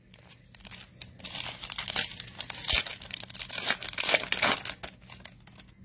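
Foil Panini Prizm basketball card pack crinkling and tearing as it is ripped open by hand, a run of irregular crackles that dies down near the end.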